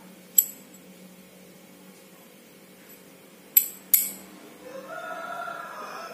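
Sharp metallic clicks of small fishing-reel parts being handled and fitted during reassembly: one about half a second in, then two close together a few seconds later. Near the end a drawn-out wavering pitched call sounds in the background.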